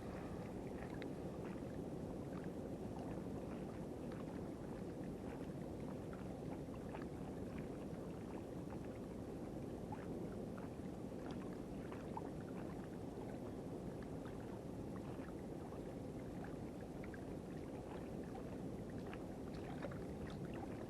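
Sea water sloshing and lapping at the shoreline, a steady wash with small scattered clicks and trickles.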